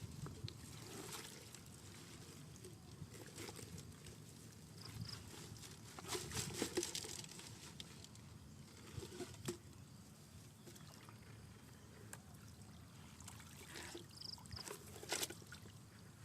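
Faint water sloshing and trickling, with scattered crackles and knocks, loudest about six seconds in and again near the end, and a couple of brief high chirps.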